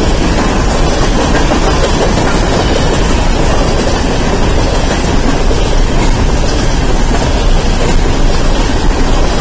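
A freight train of empty coal hopper cars rolling past at speed: a loud, steady rumble of steel wheels on the rails.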